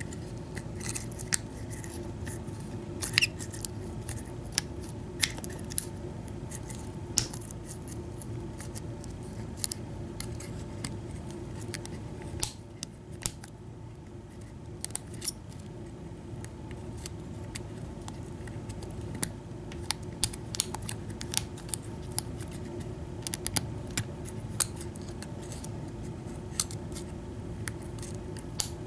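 Lock pick and tension wrench working the pins of a Master Lock No. 40 round padlock: scattered small metallic clicks and light scrapes, over a steady low hum.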